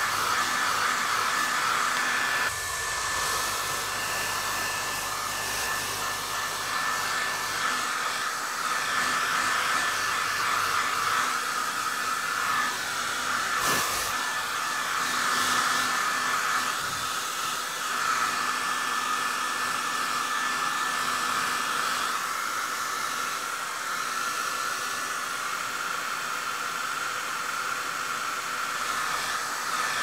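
Hair dryer running steadily: a continuous blowing rush with a steady tone running through it, and a brief click about halfway through.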